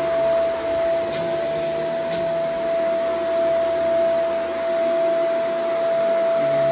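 Shark Vertex AZ2002 powered lift-away upright vacuum running on thick carpet, picking up dog hair and dust. Its motor holds a steady high whine over a rushing suction hiss, with two faint ticks about one and two seconds in.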